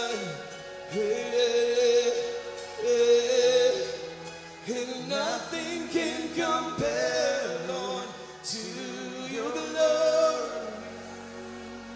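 Live gospel worship music: a male voice sings long, held, wavering phrases over a steady sustained keyboard-like accompaniment. The singing drops away near the end, leaving the sustained accompaniment.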